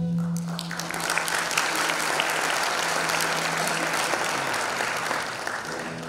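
Concert audience applauding as the music stops; the clapping builds within the first second and dies away near the end.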